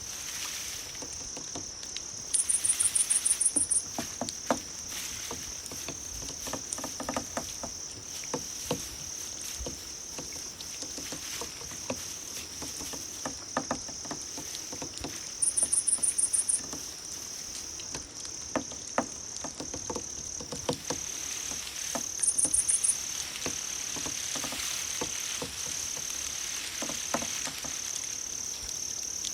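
Grass insects (crickets) chirping: a steady high trill runs throughout, and a louder, higher, rapidly pulsed chirp breaks in three times, about 2.5, 15.5 and 22 seconds in. Scattered soft clicks and patter lie underneath.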